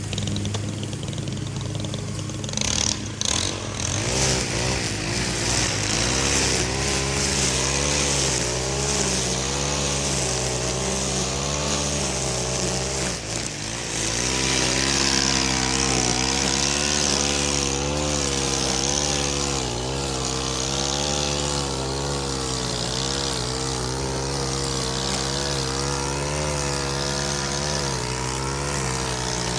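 Gas string trimmer running, its engine speed rising and falling as the line cuts through grass, with a strong hiss from the cutting. It starts up about three seconds in and drops off briefly about halfway through. A steadier low engine hum runs underneath.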